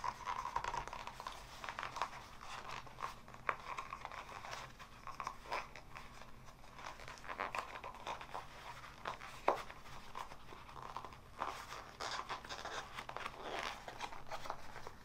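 Cardboard core being worked loose by hand from the centre of a toilet paper roll: scattered crinkling and tearing of paper and cardboard, with a few sharp snaps.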